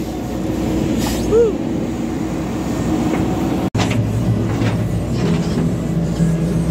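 JCB backhoe loader's diesel engine running steadily while it works. The sound drops out for an instant about halfway through, and after that the engine note is steadier and more prominent.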